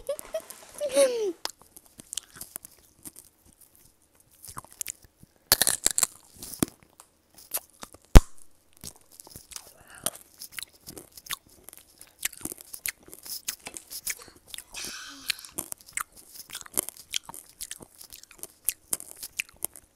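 Close-up crunching and chewing of tanghulu, strawberries and orange pieces in a hard, glassy sugar shell: the candy coating cracks in many sharp, irregular crunches between bites and chews. One especially loud crack comes about eight seconds in.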